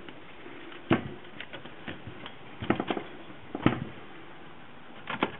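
Scattered sharp clicks and knocks from a Byron portable typewriter being handled during a carriage repair: one about a second in, a pair near the middle, another soon after, and two near the end.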